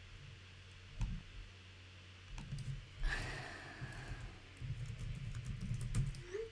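Typing on a computer keyboard: scattered keystrokes, then a quick run of clicks near the end, with a breathy sound about three seconds in.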